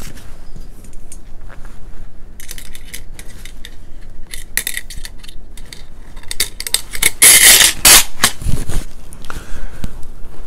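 Metal clicks and clinks of a Colt 9mm carbine's buffer assembly being handled, with the buffer spring scraping as it is drawn out of the buffer tube; the loudest part is a rasping slide about seven seconds in.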